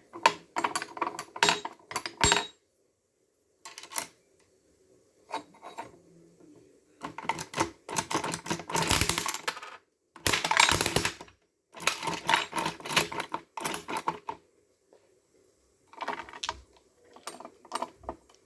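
Coin-operated gumball machine being worked by hand: bursts of metallic clicking and rattling from the coin mechanism and turning crank, with pauses between them and longer runs of clatter in the middle.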